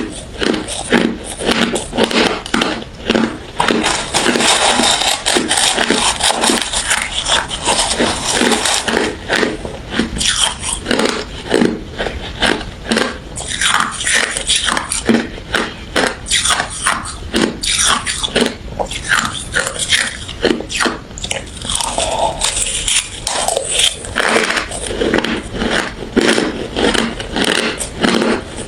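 A person chewing and crunching refrozen crushed ice close to the microphone, with a quick, continuous run of sharp crunches.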